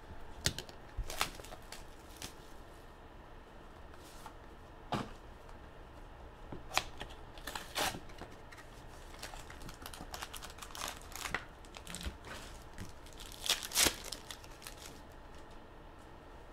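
Foil wrappers of Panini Intrigue basketball card packs being handled and torn open: scattered crinkles and short rips, the loudest a couple of seconds before the end.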